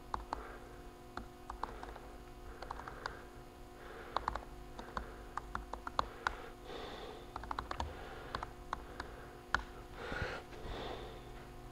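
Typing on a MacBook laptop keyboard: irregular runs of quick key clicks with short pauses, over a steady electrical hum.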